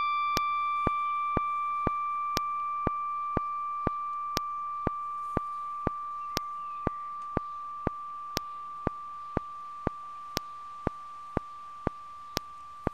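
A single struck bell-like tone ringing out and slowly fading, with a sharp click about twice a second, steady as a clock tick.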